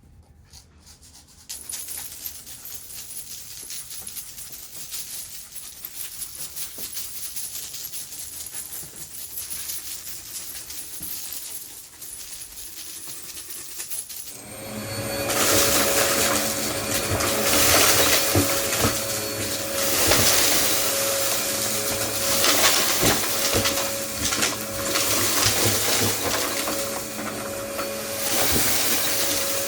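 Vacuum cleaner switched on, running steadily, then stepping up much louder with a steady whine about halfway through, with many small clicks and rattles of debris being sucked up.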